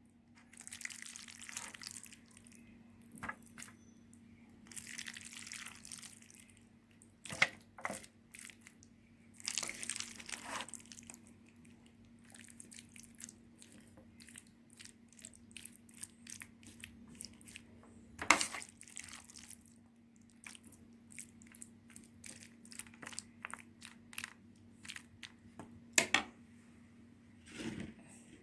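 Kitchen preparation sounds: scattered clicks and knocks of utensils and short rustling, crinkling stretches of handling food and packaging, over a steady low hum.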